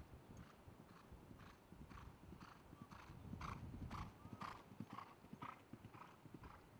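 A faint, regular series of sharp knocks or claps, about two a second, louder around the middle.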